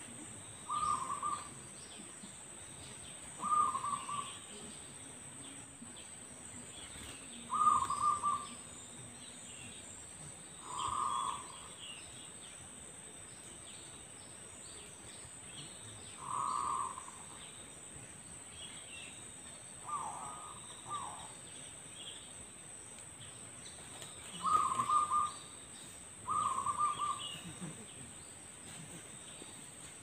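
Zebra dove cooing: short, trilled coos repeated every few seconds, eight times.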